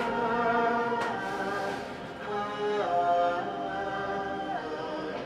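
Slow choral Christmas music, voices holding long notes and moving to new ones every second or so, played through an Amazon Echo Dot (2nd generation) smart speaker.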